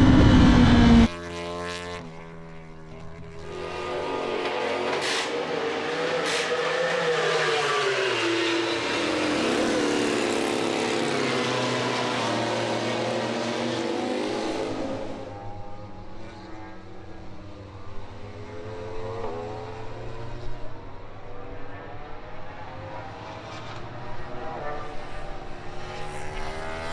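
MotoGP racing motorcycle engines at high revs across several shots. The first second is loud with the pitch falling; after a sudden cut the engine sound is quieter and rises and falls in pitch with throttle and gear changes.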